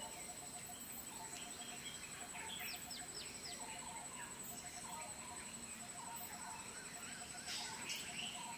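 Birds and insects calling: a steady high-pitched insect drone, a low piping call repeated in short runs of even pips, and scattered bird chirps and quick falling whistles that grow busier and louder near the end.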